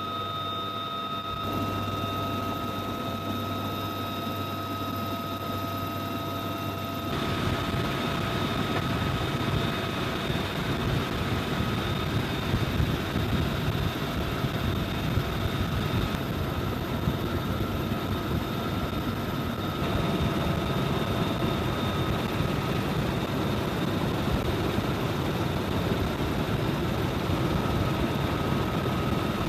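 Helicopter turbine engines and rotor running in flight: a continuous rotor noise with a steady high turbine whine. It grows louder and fuller after an abrupt change about seven seconds in.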